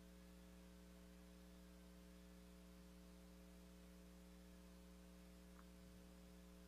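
Near silence: a faint, steady electrical mains hum with light hiss.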